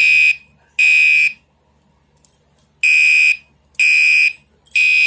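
Fire alarm horn sounding its evacuation signal: loud, high-pitched half-second beeps in groups of three, with a longer pause between groups (the temporal-three pattern).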